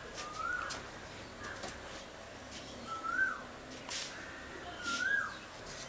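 A bird calling three times, each a short call that rises and then falls in pitch, with a light knock about four seconds in.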